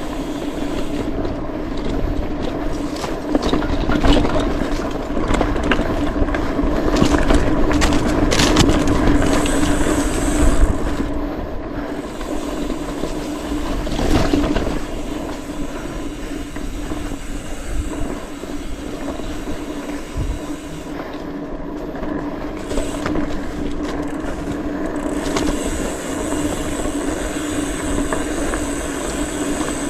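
Mountain bike rattling and clattering over a rough trail, with a steady buzz from the rear freehub as it coasts. Heavier jolts come in the first half and again around the middle.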